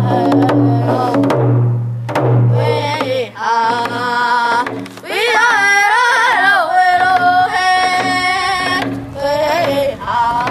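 Hand drum struck with a beater in a steady beat while a voice sings a hand-drum song, the singing climbing to a high, wavering pitch about two seconds in.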